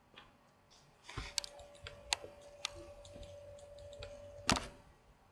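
A few sharp clicks from a computer mouse and keyboard, the loudest about four and a half seconds in. A faint steady tone runs under them from about a second and a half in until that last click.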